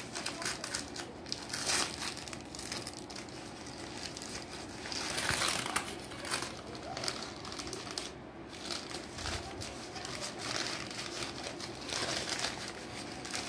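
Newspaper and plastic wrapping crinkling and rustling as it is handled and pulled from around a plant's root ball, in irregular bursts, loudest about five seconds in.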